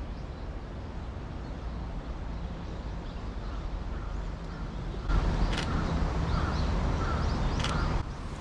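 Steady outdoor city street ambience with birds calling. About five seconds in it turns louder for about three seconds, with two sharp clicks in that stretch.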